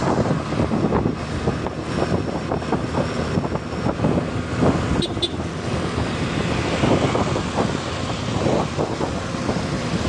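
Wind buffeting the microphone of a phone held on a moving two-wheeler, over the road noise of traffic and engines. A brief high double beep sounds about five seconds in.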